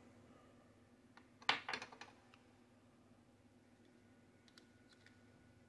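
A few small clicks and taps from handling small parts: a quick cluster about a second and a half in, then a few faint ticks near the end, over quiet room tone.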